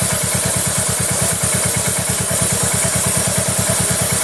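Royal Enfield Hunter 350's single-cylinder engine idling with a steady, even thump, running in first gear so the rear wheel and chain turn on the stand.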